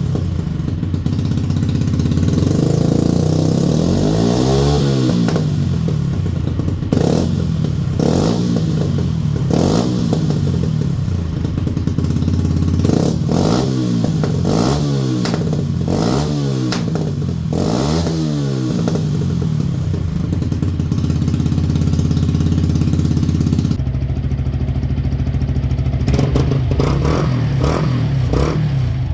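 Yamaha YZF-R125's single-cylinder 125 cc four-stroke engine, fitted with an aftermarket exhaust, idling and being blipped repeatedly. Each rev climbs quickly and falls straight back to idle. About five-sixths of the way through, the idle sound changes abruptly, as a different exhaust takes over, and a few more revs follow.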